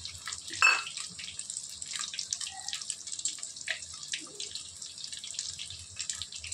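Chicken pakoras deep-frying in hot oil in a kadai: a steady crackling sizzle with many small pops, and one brief louder clatter about half a second in.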